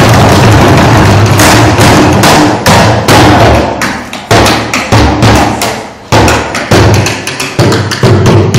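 Recycling bins played as drums with sticks, hit by a group in a bhangra-style rhythm. Loud, sharp strikes, each with a short ringing decay, come as separate hits from about a second and a half in.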